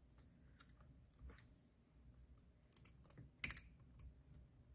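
Faint small plastic clicks from a C7 Corvette steering-wheel airbag connector as its orange locking tabs are pulled up and the plugs worked free, with a louder cluster of clicks about three and a half seconds in.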